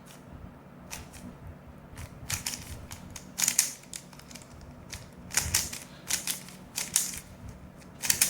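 MoYu Super RS3M magnetic 3x3 speed cube being turned by hand: its plastic layers click in short, irregular bursts of quick turns.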